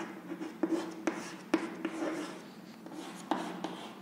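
Chalk writing on a chalkboard: scratchy strokes broken by several short sharp taps as the letters are formed.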